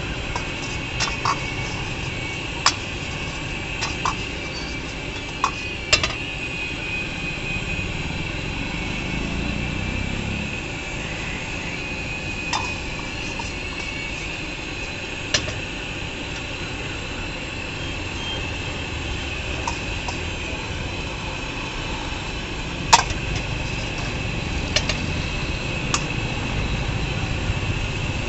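Metal ladle clinking and scraping against an iron wok as egg manchurian is stirred and tossed, scattered sharp clinks with the loudest near the end. Under it a steady hiss from the gas burner and the frying food, with a low rumble of road traffic.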